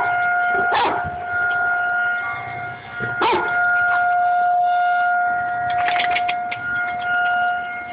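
Outdoor tornado warning siren holding a steady tone during a siren test. An American bulldog howls along with it in short bursts: about a second in, after about three seconds, and again around six seconds.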